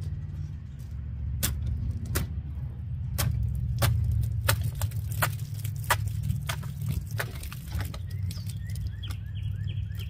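Plastic water bottle stabbed repeatedly with a small stainless-steel pocketknife blade: about a dozen sharp plastic cracks over several seconds as the blade punctures and tears the bottle rather than cutting it cleanly. A low steady rumble runs underneath.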